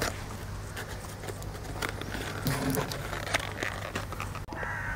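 Quiet outdoor background: a steady low rumble with a few faint clicks, and near the end a crow begins to caw.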